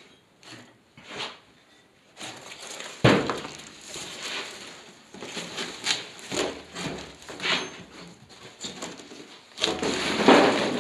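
Cardboard packaging being pulled apart, folded and tossed aside, in irregular crackling rustles, the loudest near the end. About three seconds in, a heavy knock as the metal gearbox is set down on a metal sheet.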